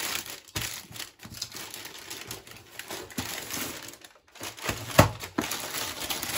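Baking paper rustling and crinkling as a metal baking tin is turned over with it by hand, with a few knocks, the loudest a sharp one about five seconds in.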